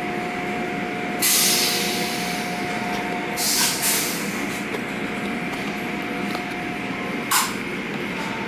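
Automatic car wash tunnel running, heard through a glass viewing window: a steady rush of machinery and water, with loud hissing blasts of high-pressure spray, one lasting about a second from about a second in, another at about three and a half seconds, and a short one near the end.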